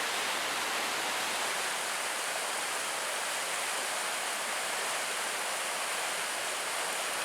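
Water of a stream rushing over small waterfalls and cascades: a steady, even hiss with no breaks.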